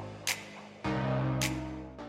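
Background music: sustained chords with a light percussive tick, a new chord coming in a little under a second in, then fading.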